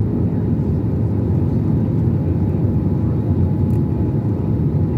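Steady low rumble of engine and airflow noise inside the cabin of an Airbus A321-200 in flight.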